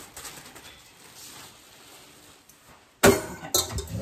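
Kitchen items being handled in a cabinet: faint rustling, then about three seconds in a sudden loud knock and clatter.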